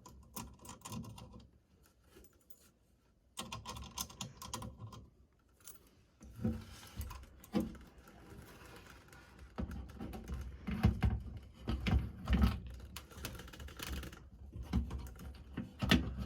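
Irregular small clicks, taps and scrapes of hands working on the radio's mounting nuts and fitting the radio into the car's dash. The sounds come in uneven spurts, with a short pause near the start and heavier knocks about two-thirds of the way through.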